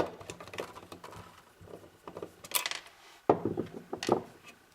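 Clicks, knocks and light metallic clatter of a server power supply's sheet-metal housing and parts being handled as it is taken apart, with a cluster of knocks a little past three seconds in.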